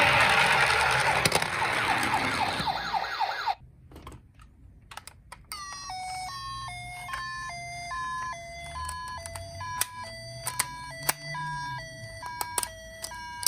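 Toy ambulance minicar's electronic siren. For the first few seconds it gives a rapid rising yelp over a loud rushing noise, then it cuts off abruptly. After a few clicks it switches to the two-tone hi-lo 'pee-po' ambulance siren, alternating between two pitches about twice a second.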